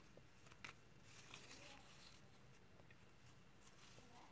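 Near silence, with faint rustling and a couple of light clicks from a small stack of paper sticker flakes being handled.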